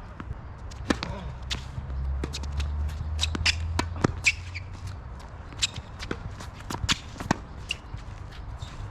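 Tennis shoes scuffing and stepping on a hard court, mixed with sharp taps of a tennis ball bouncing, irregular and spread through the whole stretch. A low rumble rises for a few seconds about two seconds in.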